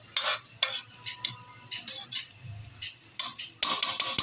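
Metal ladle clinking and scraping against an aluminium wok while stirring coconut milk. There are a few scattered clinks at first, then quick repeated tapping from about three and a half seconds in.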